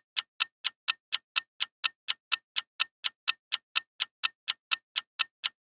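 Countdown-timer sound effect of a ticking clock, with sharp, evenly spaced ticks at about four a second.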